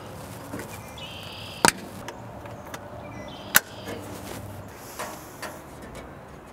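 Plastic air filter cover being twisted and seated in the compressor housing, giving two sharp clicks about two seconds apart.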